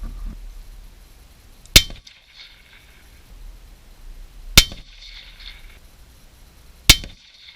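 Three rifle shots from a Ruger Precision Rifle, two to three seconds apart, each a sharp crack followed by a short ring.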